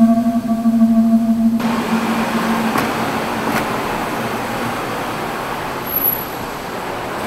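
A low musical drone fades out in the first couple of seconds. After it comes the steady noise of a car rolling slowly through a concrete parking garage, engine and tyres running at low speed.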